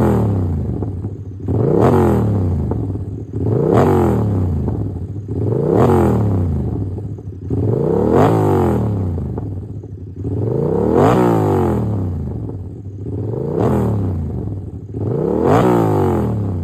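Yamaha R7's parallel-twin engine, breathing through a new aftermarket exhaust, being revved in repeated throttle blips about every two seconds. Each rev rises sharply and falls back to idle.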